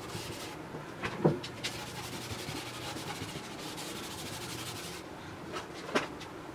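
Cloth rag rubbing over a wooden tabletop as a dark finish is wiped into the grain, a steady soft scratchy swishing. Sharp knocks sound about a second in and again near the end.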